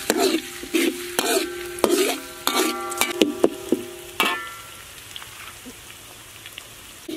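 Slotted metal spatula scraping and knocking against a thin steel wok as chopped garlic is stir-fried in oil, each stroke making the wok ring, over a frying sizzle. The stirring stops about four seconds in, leaving the quieter sizzle.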